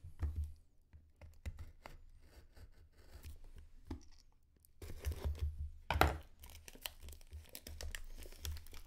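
Plastic shrink wrap being torn and crinkled off a sealed trading card box, in a string of irregular rips and crackles, with a sharp snap about six seconds in.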